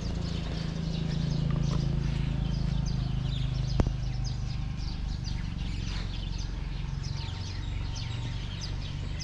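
Small birds chirping repeatedly in short, quick calls over a steady low hum, with a single sharp click a little under four seconds in.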